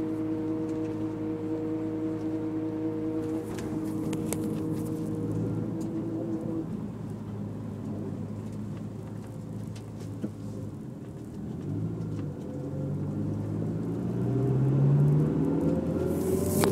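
Honda S2000 running, with a steady tone held over the engine for the first few seconds, then the engine pitch rising under acceleration toward the end. The owner hears a whine only with the throttle pressed and is unsure whether the differential or the transmission is making it.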